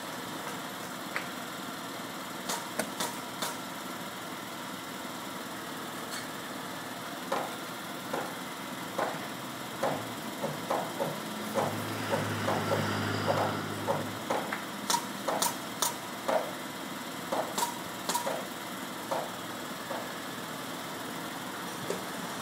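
Crane truck's engine running steadily, with a hammer driving nails into roof trusses: sharp knocks, one or two a second in quick runs through the middle. The engine grows louder for a couple of seconds about halfway through.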